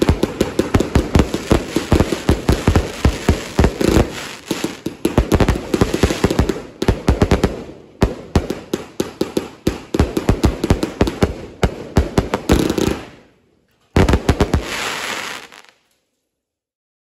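Aerial fireworks display: shells bursting in rapid succession, a dense run of sharp bangs. It breaks off briefly about thirteen seconds in, then comes back in one last flurry that cuts off abruptly.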